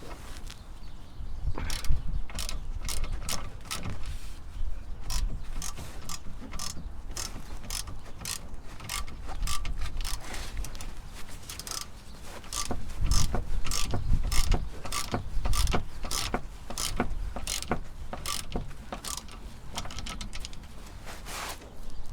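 Ratchet wrench clicking in a long run of sharp clicks, a few a second, as a rear shock absorber's mounting bolt is undone, with some heavier knocks about two-thirds of the way through.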